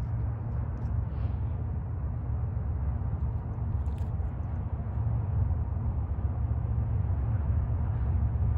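Wind buffeting the microphone: an uneven low rumble that grows a little stronger about halfway through.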